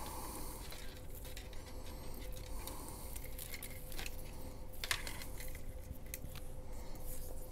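Flexible LED strip being pulled and handled from a tangled pile, with light rustling and scattered small clicks and taps as it knocks against the plastic panels and table.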